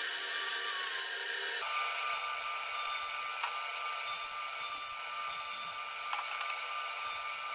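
Power saws cutting oak boards. First a band saw blade runs through the wood, then an abrupt change about two seconds in to a steady machine whine with thin high tones.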